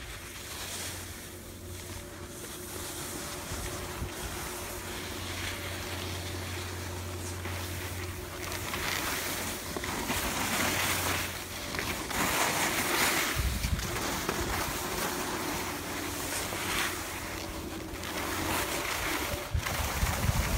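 Skis sliding and scraping over packed snow, swelling with each turn every second or two, over a low rumble of wind on the microphone; it grows gradually louder as the skiing speeds up.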